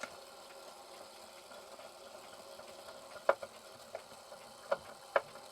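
Herschede clock's chime train running on with a steady mechanical whir, the chime mechanism not yet stopped, with a few sharp clicks about three seconds in and twice near the end.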